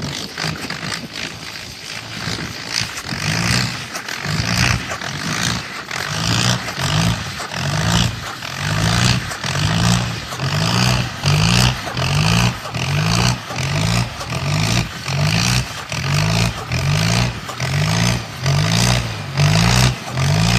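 Indo Farm tractor engine running, overlaid from a few seconds in by a music track's steady bass-and-drum beat, about two beats a second, that grows louder.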